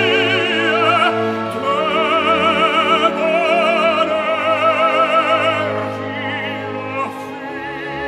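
Operatic tenor singing long held notes with a wide vibrato over a sustaining orchestra. About six seconds in the voice stops and the orchestra plays on, a little quieter.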